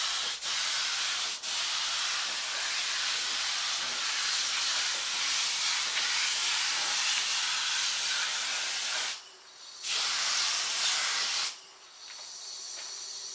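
Paint being sprayed, a loud steady hiss in long bursts, with a short break about nine seconds in and a stop about eleven and a half seconds in.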